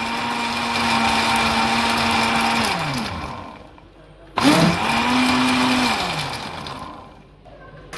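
Electric blender motor blending a thin mix of phalsa berries and water, switched on and off in short pulses. It is running as the sound begins, winds down with falling pitch about three seconds in, starts again abruptly a little after four seconds, then winds down once more near seven seconds.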